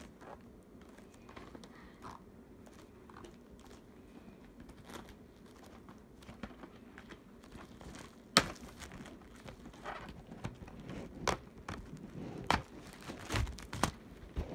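Handling noises from a VHS tape being unboxed: soft rustling and crinkling with scattered sharp clicks of plastic, the loudest about eight seconds in and several more in the last few seconds.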